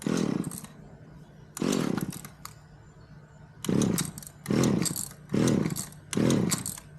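Two-stroke chainsaw engine blipped in six short revs over a steady low idle, the last four coming in quick succession about a second apart. The saw is not running properly.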